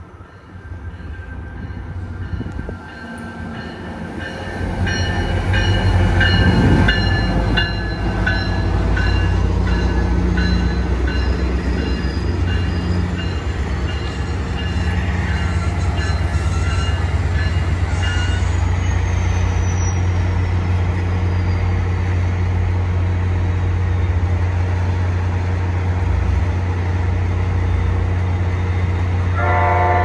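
MARC commuter train's diesel locomotive running with a steady low drone as it comes up close, growing louder over the first several seconds. High ringing tones come and go until about halfway through, and the horn starts sounding right at the end.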